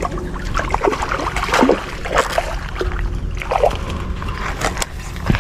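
Water sloshing and splashing in short irregular bursts, over a steady low rumble.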